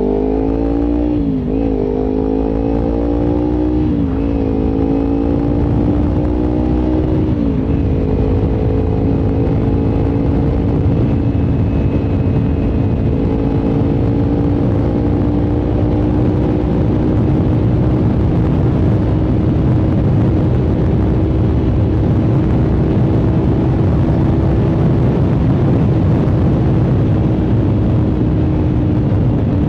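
Kawasaki Ninja 300's parallel-twin engine pulling up through the gears. The revs rise and drop sharply three times in the first eight seconds or so as it shifts up, then hold steady at cruising speed. Wind and road noise run underneath throughout.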